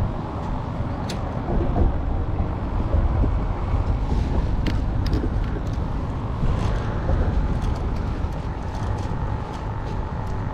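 Steady low rumble of road traffic on the bridge, with a few faint clicks.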